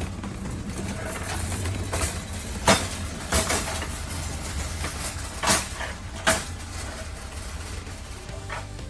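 Sharp knocks and clacks from handling a packed cardboard shipping box, about six spread over several seconds, the loudest a little under a third of the way in, over a steady low hum.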